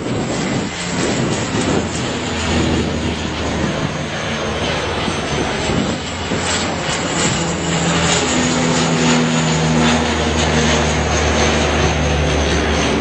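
Canadair water bomber flying low overhead, its propeller engines running with a steady low hum that grows louder from about eight seconds in.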